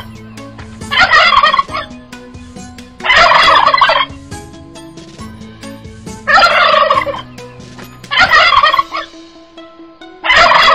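Domestic tom turkey gobbling, five loud calls of under a second each, spaced about two seconds apart.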